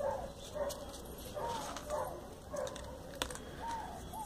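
A dog whining in short yelps that rise and fall in pitch, about seven of them, with a single sharp click about three seconds in.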